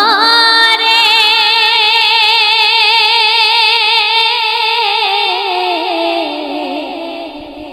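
Solo voice singing a Bengali Islamic ghazal, holding one long note with a wide, even vibrato, then sliding down in pitch and fading away near the end.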